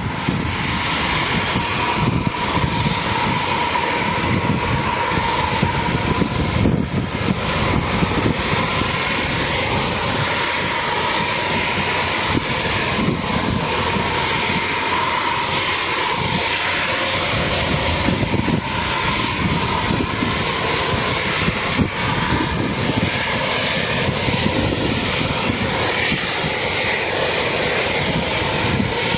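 Jet aircraft engines running steadily: a continuous rushing roar with a faint, steady whine.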